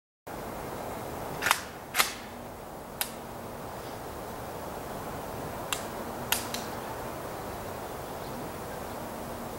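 Steady outdoor background hiss with several short, sharp cracks: two about a second and a half and two seconds in, a fainter one at three seconds, and three faint ones around six seconds.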